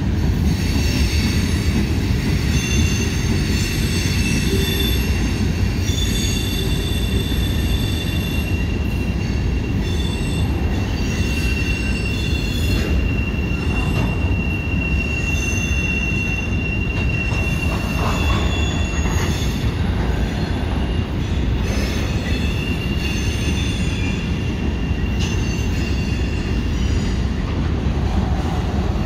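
Freight train cars rolling past close by: a steady low rumble of steel wheels on rail, with thin high-pitched wheel squeals coming and going, one held for several seconds around the middle.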